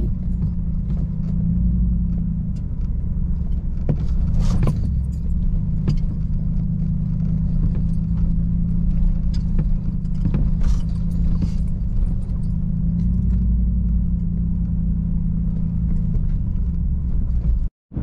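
2021 Chevrolet Silverado Trail Boss pickup driving a rough off-road trail: a steady low drone of engine and tyres, with scattered clicks and rattles from the truck over the uneven ground. The sound cuts off abruptly near the end.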